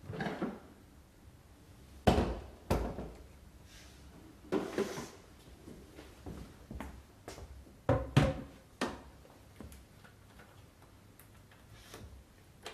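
Scattered knocks, clunks and clicks of hard plastic parts being handled and fitted together, with the loudest pair about two seconds in and another pair about eight seconds in. No motor is running.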